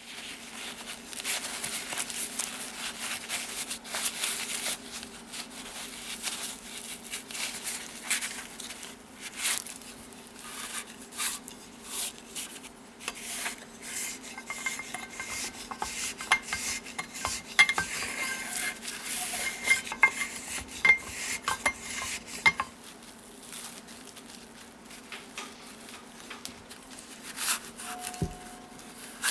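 Small metal parts and tools being handled on a workbench, with irregular clinks, taps and scraping, over a steady low hum.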